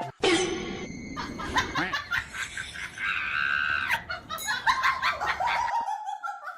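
People laughing, with a held high-pitched cry about three seconds in and a falling cry near the end.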